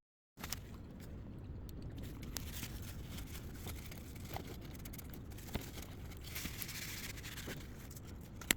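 Light rustling and scattered small clicks of hands handling a blender's plastic parts, with one sharper click near the end.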